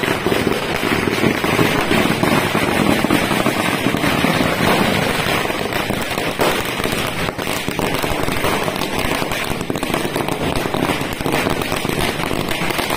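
A string of firecrackers going off continuously: a dense, unbroken crackle of rapid sharp pops.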